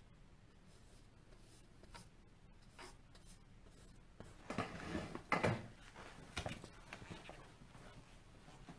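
A large paintbrush stroking black paint onto a stretched canvas: soft scratchy brushing, with a few louder strokes about halfway through.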